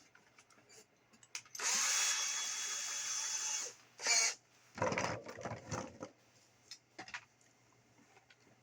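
Small electric drill with a 7/32-inch bit running in short bursts: a steady whine for about two seconds, a brief burst, then a rougher stretch as the bit bores into the radio's plastic case to enlarge the antenna-jack hole. Light handling clicks follow.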